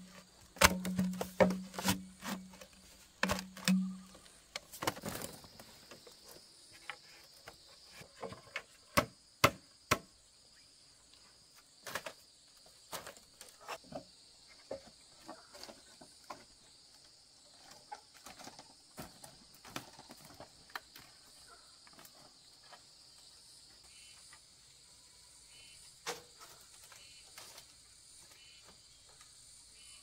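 Insects, crickets, chirring steadily and high, with scattered sharp knocks and clicks that are densest in the first ten seconds. A low pulsing sound runs through the first few seconds.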